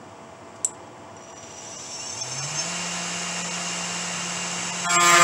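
A 500W brushless spindle on a 3040T CNC router starting up: a single click about half a second in, then a whine that rises in pitch and settles into a steady spin. Near the end the end mill bites into the workpiece and the sound jumps suddenly to a much louder cutting noise.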